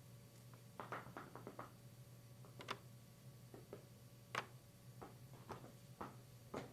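Faint, scattered foley taps and clicks at an irregular pace, with a quick run of them about a second in and the loudest single tap about four and a half seconds in, over a low steady hum.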